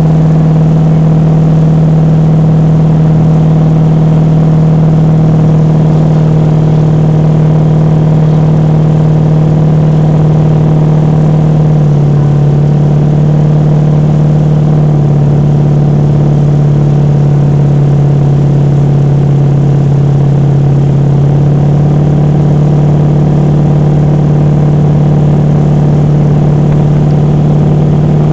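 Motorboat engine running steadily at speed under the load of towing tubes: a loud, steady drone that steps slightly lower in pitch about halfway through, over the rush of the churning wake.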